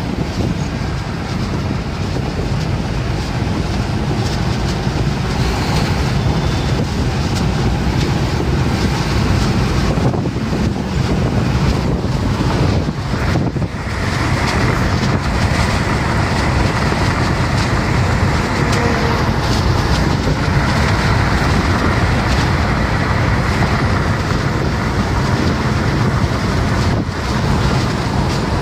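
Steady road and wind noise inside a Tata car's cabin cruising at highway speed: tyres rumbling on the asphalt under a constant rush of air.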